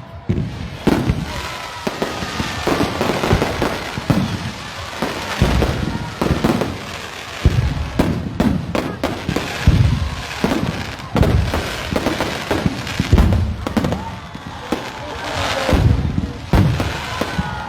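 Fireworks display: a continuous barrage of booming explosions and crackling bursts, many in quick succession.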